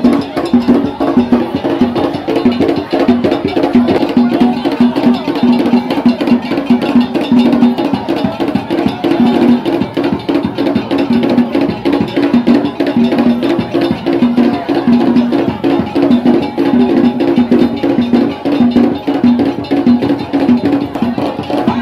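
Traditional Ga ceremonial drumming: drums and hand percussion playing a fast, steady rhythm without a break.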